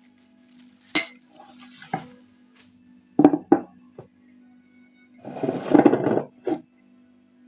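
Dishes and utensils clinking and clattering: a sharp knock about a second in, another at two seconds, a few clinks around three seconds, then a denser burst of clatter near six seconds.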